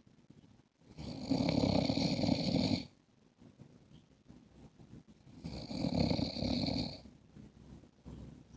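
A man snoring in his sleep: two loud snores, the first about a second in and the second about four seconds later, each lasting about a second and a half, with quieter pauses between them.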